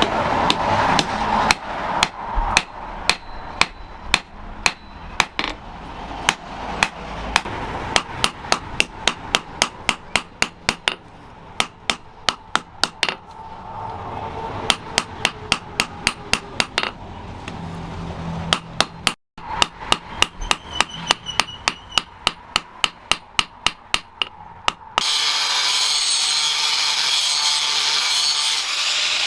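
Blacksmith's hand hammer striking steel in quick, even runs of blows, about three a second at times, with a short break near the middle. About three-quarters of the way in, the hammering stops and a steady harsh rasping noise takes over.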